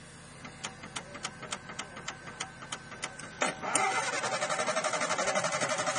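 An off-road 4x4's engine turning over on the starter, starting suddenly about three and a half seconds in with a fast, even pulsing. Before it there is a run of light, regular ticks, about five a second.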